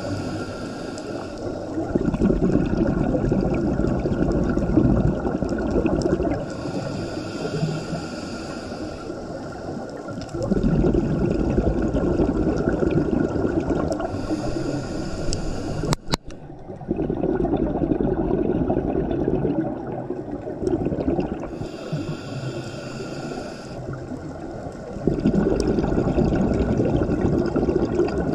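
Scuba diver breathing through a regulator underwater. Each breath brings a short hiss on the inhale, then a few seconds of bubbling on the exhale, repeating about every 7 to 8 seconds. A single sharp click comes about halfway through.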